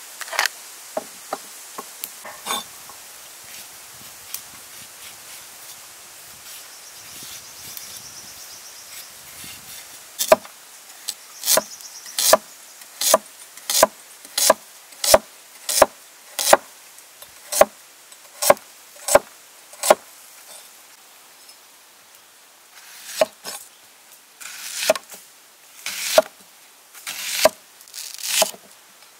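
A heavy cleaver chopping on a wooden chopping block, slicing carrot into rounds: an even run of sharp knocks, roughly three every two seconds, starting about ten seconds in. After a short pause it slices through an onion, each cut longer and crunchier.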